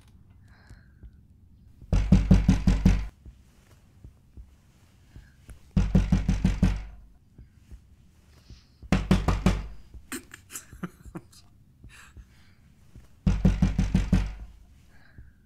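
Someone banging hard on a door: four bouts of rapid blows, each lasting about a second, several seconds apart.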